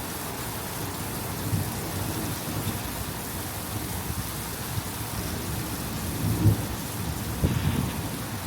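Heavy rain falling steadily in a thunderstorm, with short low rumbles about a second and a half in and twice more near the end.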